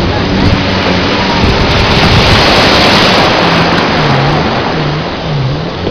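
Loud rushing of wind and sea water on the microphone, swelling around the middle, with a low motor hum underneath whose pitch dips over and over near the end.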